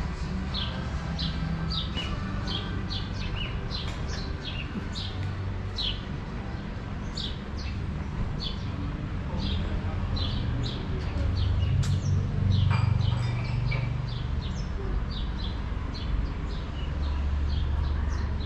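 Small birds chirping over and over, short falling chirps about two a second, over the low rumble of passing street traffic that swells about twelve seconds in and again near the end. A single sharp click sounds near the middle.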